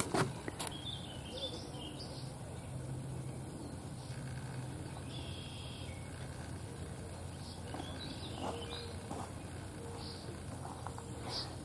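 Outdoor ambience: scattered short bird chirps over a steady low hum, with a sharp knock right at the start.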